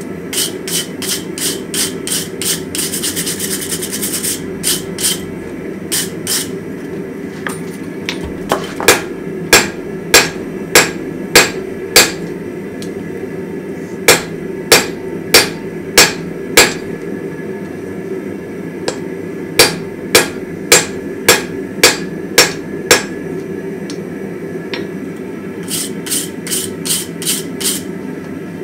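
Hand hammer striking a hot damascus steel billet on the anvil in three runs of even blows, about two a second, drawing the billet out. A wire brush scrapes scale off the hot steel a few seconds in, with lighter taps near the start and the end. A steady low rush runs underneath throughout.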